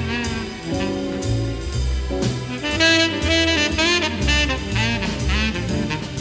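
Jazz background music: a wavering melody line over a walking bass and drums.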